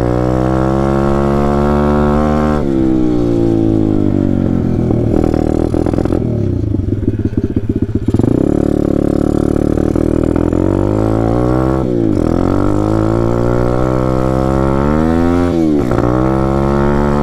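Taotao DB17 125 pit bike's single-cylinder four-stroke engine revving hard under acceleration while being ridden. Its pitch climbs steadily and drops sharply about four times as it shifts through the gears, with a rougher, choppier stretch in the middle.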